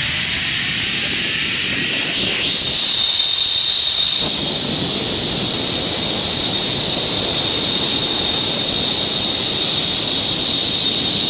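Zip-line trolley pulleys running along the steel cable: a steady high-pitched whir over rushing wind, growing fuller and slightly louder about two seconds in.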